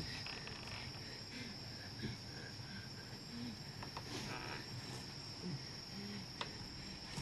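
A steady, unbroken high-pitched insect drone, crickets by the sound of the tags, with faint short low calls and a few sharp clicks scattered through it.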